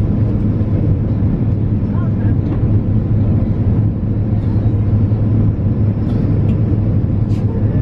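Steady low drone of an airliner cabin in flight: jet engines and rushing airflow heard from inside the cabin.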